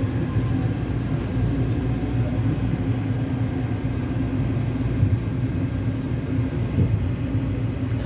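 Taipei Metro steel-wheel heavy-rail train heard from inside the car as it runs along a station platform: a steady low rumble with a faint steady hum.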